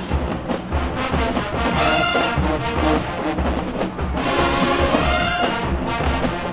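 HBCU-style marching band playing at full volume: a brass section of trumpets and trombones over a steady low beat from the drum line.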